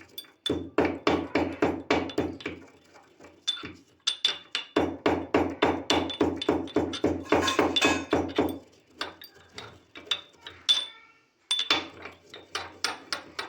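Pestle pounding roasted cloves and black peppercorns in a mortar to make a powder. Two runs of quick strikes, about five a second, with a short pause between them, then slower, scattered strikes near the end.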